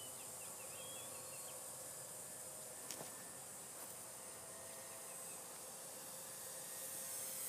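Faint open-air background with a few small chirps in the first second or so, and the distant engine of a radio-controlled T-28 Trojan model plane growing steadily louder near the end as it comes in for a low pass.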